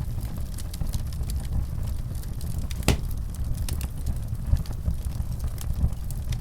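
Wood fire in a fireplace crackling: scattered sharp pops over a steady low rumble, with one louder snap about three seconds in.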